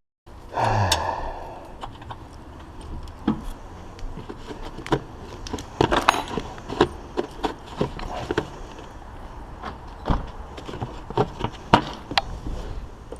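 Irregular metallic clicks and clinks of hand tools working on a car battery's hold-down bracket and terminals, with a louder knock about half a second in.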